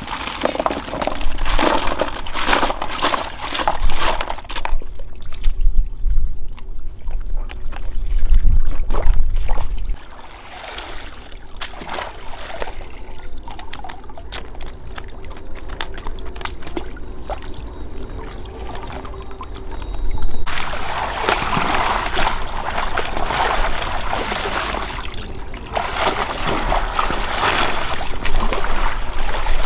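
Water splashing and sloshing in irregular bursts, then a steadier pouring sound that starts suddenly about two-thirds of the way through.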